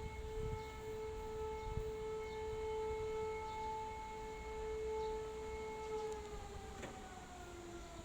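Civil defense siren sounding one steady tone in a test of the public warning system; about six seconds in its pitch begins to slide slowly downward as it winds down.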